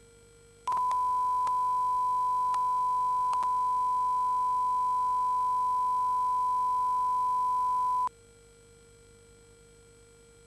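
Steady single-pitch test tone on the sound channel of an analog amateur television test-card transmission, switching on about a second in and cutting off suddenly after about seven seconds, with a few faint clicks in its first few seconds. A faint steady hum lies under it throughout.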